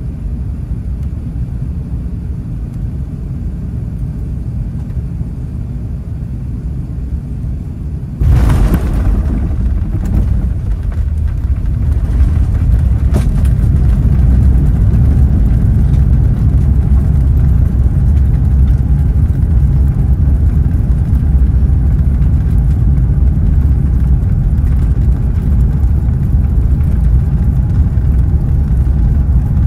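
Airbus A380 landing, heard from inside the cabin: a steady rumble of engines and airflow on the final descent, a sudden thump at touchdown about eight seconds in, then a louder, heavier rumble as the aircraft rolls out along the runway.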